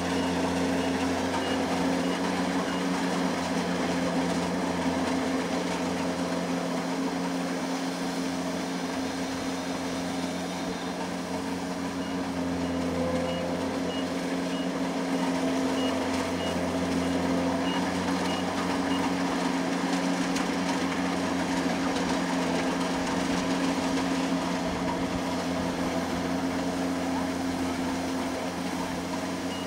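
Kubota combine harvester's diesel engine running steadily. A high warning beep repeats a little less than twice a second, briefly at the start and again for several seconds midway.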